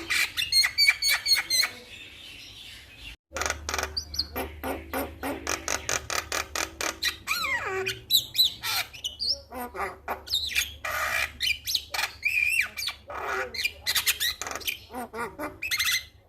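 Male Javan myna calling in a fast, continuous run of harsh squawks, clicks and whistled gliding notes; the sound cuts out briefly about three seconds in.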